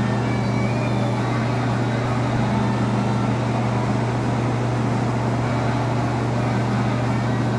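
Steady low machine hum under a constant airy hiss from spray-painting equipment in a paint booth, running without a break while a gravity-feed spray gun lays on a coat of paint.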